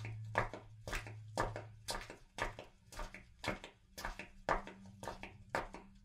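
Footsteps walking at a steady pace of about two steps a second, each step a sharp heel strike followed by a lighter tick, over a low steady hum.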